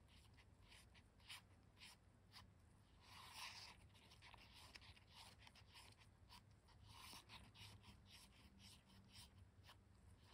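Faint, irregular scraping of a wooden lollipop stick against the inside of a paper cup as glitter is stirred into thick epoxy resin.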